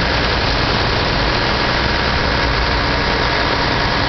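Heavy diesel engine of a concrete truck running steadily.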